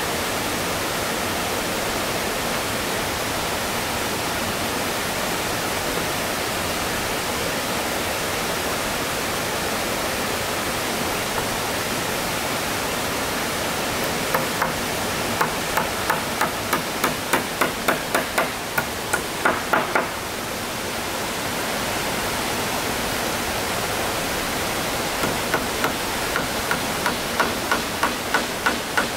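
A hammer driving nails into the wooden roof boards of a plank gazebo: two runs of quick blows, about three a second, the first about halfway in and the second near the end. Under it runs a steady rushing hiss.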